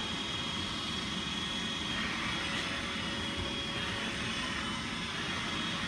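iRobot Roomba 880 robot vacuum running: a steady whirring hum with a thin high whine over it.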